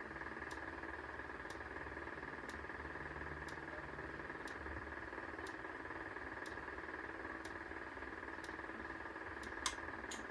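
Faint ticking about once a second from a flashing amber alert strobe, each tick a flash of the strobe. A steady faint high hum lies underneath. Near the end the ticking stops and there is a single louder click.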